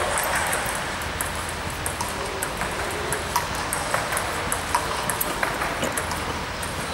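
Table tennis balls clicking off bats and tables in rallies: irregular, sharp ticks over steady background noise.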